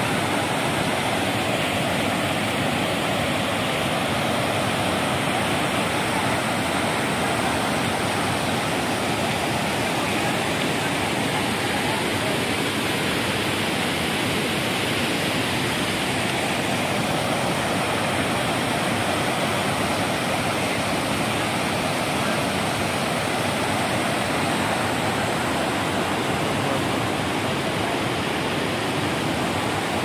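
Waterfall in flood, with muddy monsoon water pouring over broad rock ledges and cascades: a steady, even rush of water.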